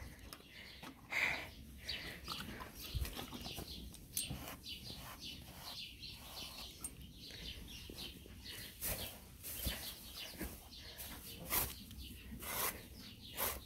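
A grooming brush swishing over a horse's coat in short, irregular strokes, about one a second.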